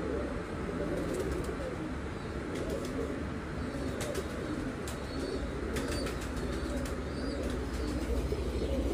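A flock of domestic pigeons cooing together in a loft, a continuous overlapping murmur, with a few light clicks over the second half.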